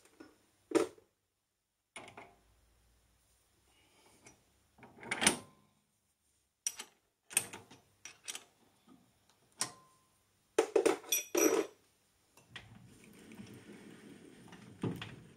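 Sharp metal clanks and clicks as tool holders are unlocked, lifted off and dropped onto a lathe's quick-change toolpost and the toolpost handle is worked, with a quick run of clanks about two-thirds of the way in. A steady machine noise starts near the end as the lathe runs up.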